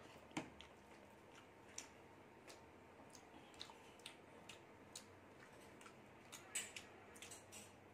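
Faint, irregular soft clicks of eating by hand: closed-mouth chewing and fingers mixing rice on a plate, with a few slightly louder clicks near the end.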